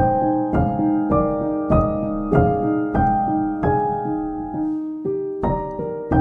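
Background piano music: a steady run of sustained notes, a new one struck about every half second or so.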